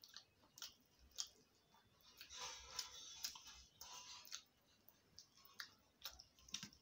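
Faint chewing of soft khichdi eaten by hand, with small scattered clicks of mouth and fingers against a steel plate, busiest in the middle.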